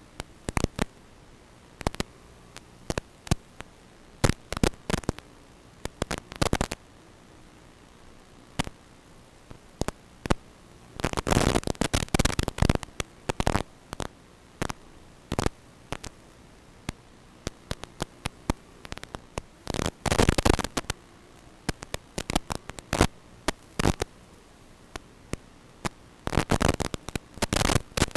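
Static from an analog FPV video link, as recorded by the goggles' DVR: a steady hiss broken by irregular crackling bursts of noise, with longer bursts about a third of the way in and again about two-thirds in. The bursts come as the video signal breaks up.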